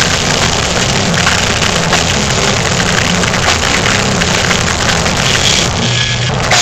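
A metal band playing live, picked up as an overloaded, distorted wash: low guitar and bass notes shifting in a riff under a constant noisy haze. Near the end the top thins out briefly while one low note holds.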